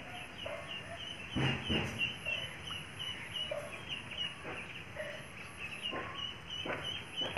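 Birds chirping in short high calls repeated several times a second throughout. A goat's feeding cuts across them in rustling, crunching noises as it pulls at leafy branches, loudest about a second and a half in.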